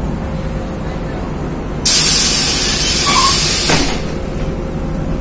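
LiAZ 5292 city bus's pneumatic system venting compressed air: a sudden loud hiss about two seconds in that lasts about two seconds. Beneath it is the steady drone of the moving bus, heard from inside the cabin.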